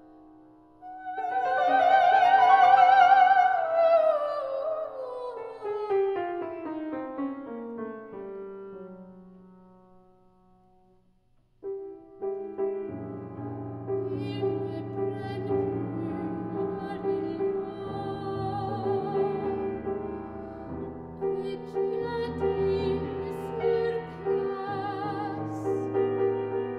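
Classical art song for female voice and piano: a loud, high sung note with vibrato about a second in, then a line that falls in pitch and fades to a brief silence. About halfway through, piano and voice start up again together.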